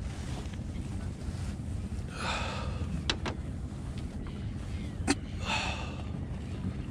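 Wind rumbling on the microphone aboard a small fishing boat, with two short breathy hisses and a few sharp clicks, the loudest about five seconds in.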